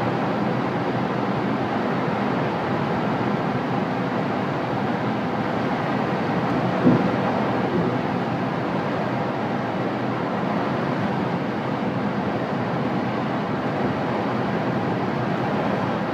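Steady rush of air over a glider's canopy in flight, heard from inside the cockpit, with a single brief knock about seven seconds in.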